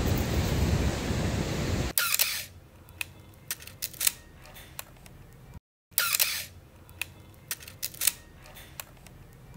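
Ocean surf with wind on the microphone, cut off abruptly about two seconds in by an SLR film camera's shutter firing and the clicks of its film advance: a sharp snap followed by a few light clicks. After a short silence the same snap-and-clicks come again.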